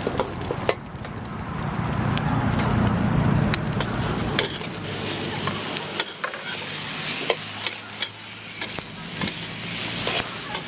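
Pork and vegetables sizzling in a hot steel wok over a gas burner, with a metal ladle clanking and scraping against the wok as it stirs. The sizzling is loudest for a couple of seconds about two seconds in.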